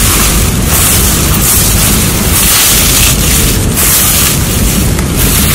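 Wind buffeting the microphone: a loud, steady rumble and rush, surging about once a second.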